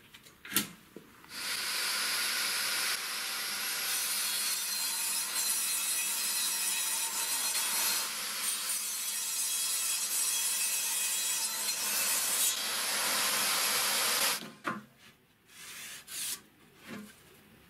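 Homemade table saw driven by an angle grinder ripping through a chipboard panel, a dense, steady cutting noise that starts about a second in and ends about fourteen seconds in. A few knocks follow as the cut board is handled.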